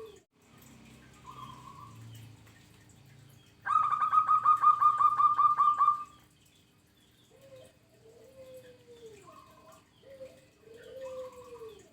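Zebra dove (perkutut) cooing in repeated phrases, each a short higher note followed by a lower, drooping coo. From about four to six seconds in, a much louder rapid trill of clipped notes, about eight a second, covers it.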